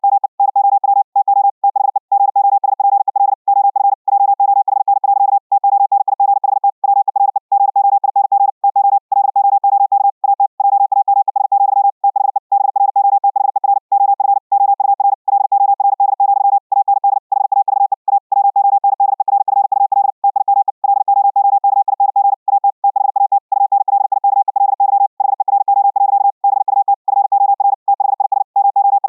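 High-speed Morse code (CW) at about 60 words per minute: one steady, mid-pitched tone keyed on and off in rapid dits and dahs, with slightly longer gaps between characters and words. The audio has been sent over the internet through a Vorbis codec and played back by the receiving Raspberry Pi.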